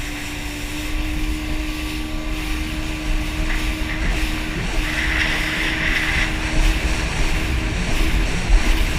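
Yamaha jet ski engine running steadily under way: a steady droning note over a low rumble, with a hiss of wind and spray that swells briefly about five seconds in.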